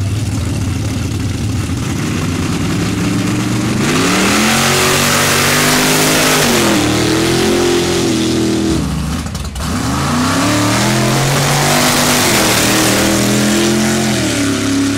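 Lifted mud-racing trucks' engines at full throttle on a mud track: a low idle, then the revs climb hard about two seconds in and rise and fall through the gears, with a loud hiss of spraying mud. After a short break about nine and a half seconds in, a second truck's engine revs up the same way.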